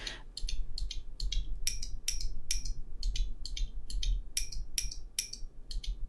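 Two loose clicky mechanical keyboard switches, a Zeal Clickiez and an Alps-style Matias clicky switch, pressed by hand and giving sharp clicks at about four a second.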